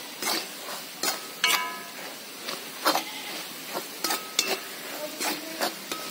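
A steel ladle scraping and clinking against a metal kadai, with sharp knocks every half second to a second, a couple of them ringing briefly. Underneath is the steady sizzle of clams frying in oil.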